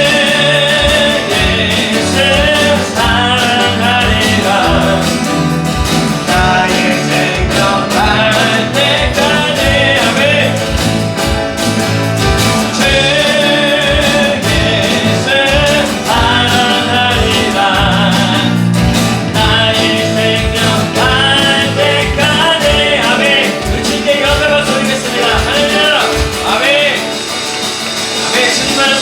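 Live praise band playing a worship song: acoustic guitar, keyboard, bass guitar and electronic drums with a steady beat, and voices singing over them.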